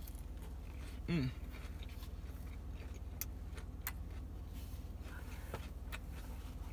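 Faint chewing of a mouthful of lettuce salad, with a few sharp clicks scattered through the second half, over a steady low hum. A brief hummed "mm" sounds about a second in.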